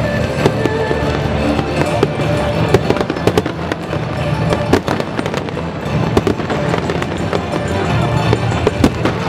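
Aerial fireworks going off in a dense barrage: a continuous run of booming bursts and sharp crackling, with music playing underneath.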